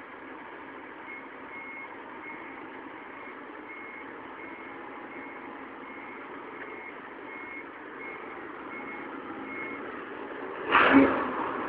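Forklift reversing alarm beeping about twice a second over its running engine, the beeping stopping shortly before the end. A short, loud burst of noise near the end.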